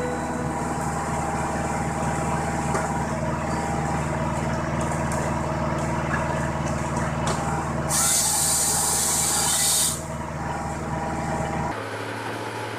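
Tractor-powered firewood processor running with a steady engine and hydraulic drone. About eight seconds in, its chain-saw bar cuts through a log for about two seconds, a louder hissing cut. Near the end the sound drops to a quieter, lower machine hum.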